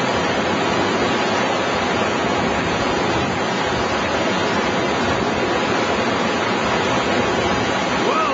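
Whitewater of a class III river rapid rushing and churning close around the raft in a steady, full roar of water.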